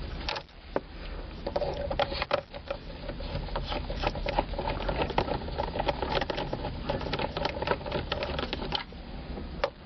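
Rapid, irregular clicking of a socket ratchet loosening the 5.5 mm screws that hold the plastic steering column covers, with small knocks of tool on plastic.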